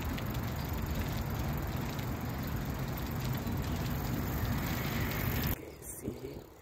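Wind buffeting a phone's microphone while riding a bicycle, mixed with the rolling noise of the tyres: a steady rushing noise, heaviest in the lows. It cuts off abruptly about five and a half seconds in.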